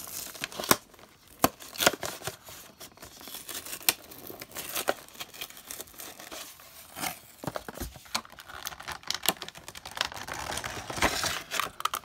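Clear plastic blister pack being pried and torn away from its cardboard backing card: irregular crinkling and crackling of the plastic with sharp snaps, busiest near the end.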